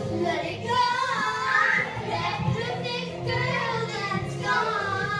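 Young girls singing a song into a microphone.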